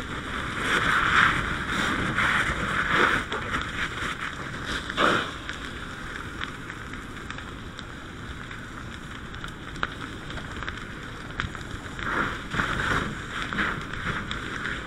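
Rushing hiss of a fire hose stream flowing from a handline nozzle, surging louder in the first few seconds and again near the end.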